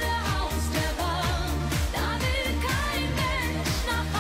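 A woman singing a German pop song into a microphone over a band with a steady beat.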